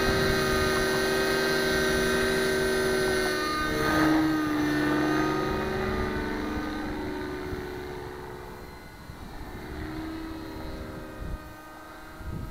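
Nitro engine and rotors of a JR Vibe 55 RC helicopter running with a steady high whine. The pitch dips briefly about four seconds in, then the sound fades over the next few seconds as the helicopter flies farther off.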